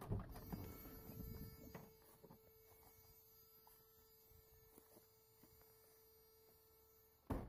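Near silence: faint rustling of movement at the start, then a faint steady hum, cut off by a sharp click near the end.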